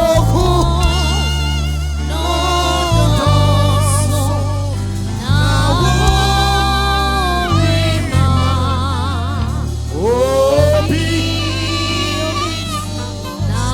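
Gospel worship music: a sung vocal line with vibrato over sustained bass and keyboard chords, changing chord every second or two.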